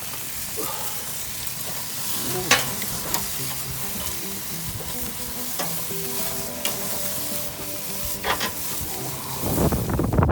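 Beef intestines sizzling on a barbecue grill: a steady fatty hiss with a few sharp pops of spitting fat. Faint music with held notes plays underneath.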